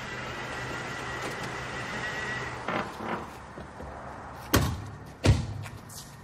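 Car running steadily, then two softer knocks and two loud thumps about a second apart: car doors being shut.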